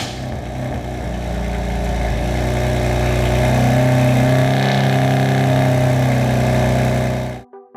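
BMW F80 M3's S55 twin-turbo inline-six running at idle through its exhaust. The pitch rises gently a few seconds in and eases back, then the sound cuts off abruptly near the end.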